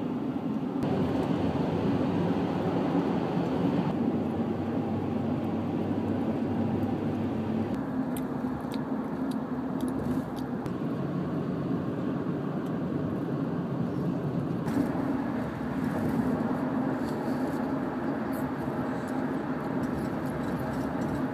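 Steady engine and tyre noise inside a moving car's cabin, shifting abruptly in tone a few times, with a few faint clicks in the middle.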